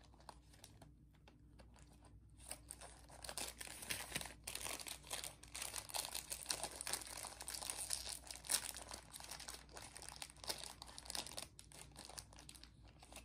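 A packet wrapper of Lemona vitamin C stick sachets crinkling and tearing as it is opened by hand. The crackling is sparse at first, then dense and irregular from about two seconds in until shortly before the end.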